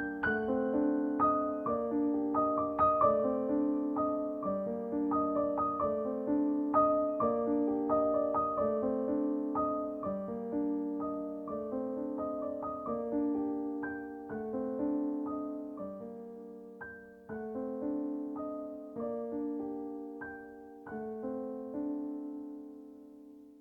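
Soft background piano music: a gentle repeating pattern of notes that fades away near the end.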